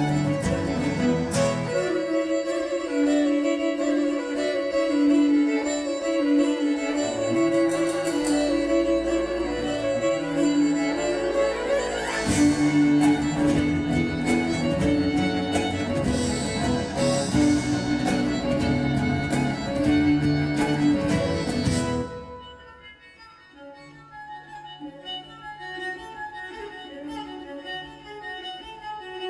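Instrumental passage from a small acoustic band, with violin and cello over guitar and percussion. About three quarters of the way through, the full band cuts off suddenly and a quiet, sparse passage of soft notes follows.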